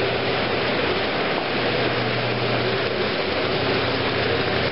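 Steady rush of splashing, churning water in catfish hatching troughs, where rotating paddles keep the water moving over the egg masses, with a low steady machine hum underneath.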